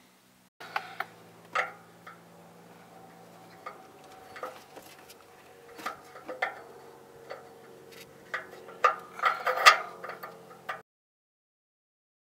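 Irregular metal clicks and knocks of a wrench-type O2 sensor remover tool being fitted and worked on a truck's upstream oxygen sensor, over a faint steady hum. The sound stops abruptly near the end.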